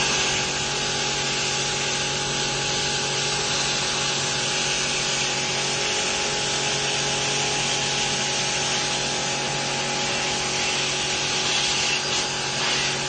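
A small motor running steadily, with a strong hiss over a constant hum.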